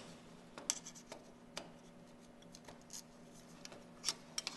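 Faint scattered clicks and light scrapes of a View-Master projector's plastic slide mechanism and metal chassis being handled and probed at its press tabs, with a small screwdriver working at the edge near the end.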